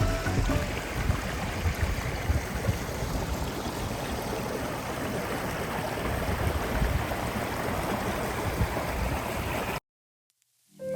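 Creek water flowing steadily, a constant rushing sound that cuts off abruptly near the end.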